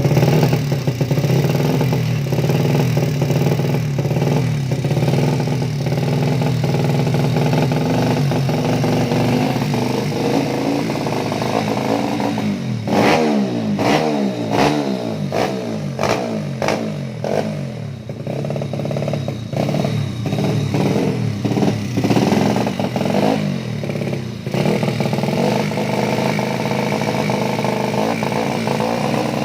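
Unfinished racing motorcycle's engine idling steadily, then revved in a series of quick throttle blips from about halfway through, falling back to idle near the end.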